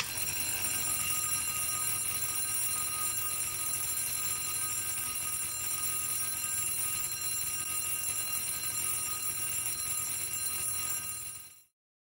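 Restored antique fire-alarm bell ringing continuously, its clapper striking the brass gong in a rapid rattle. It starts abruptly and stops suddenly near the end.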